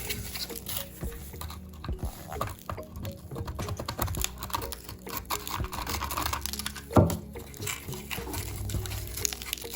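Irregular small clicks, taps and handling noises of work on a die-cast model car, over quiet background music; one sharp knock about seven seconds in.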